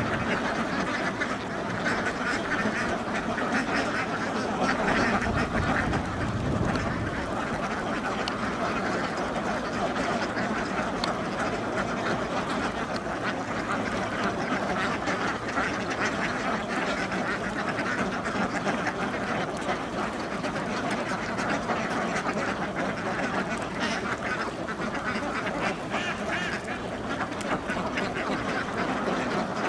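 A large flock of domestic ducks quacking continuously, many calls overlapping into a steady din.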